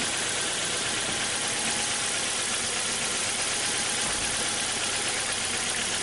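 A 2012 Hyundai Accent's four-cylinder engine idling with a misfire, running steadily throughout.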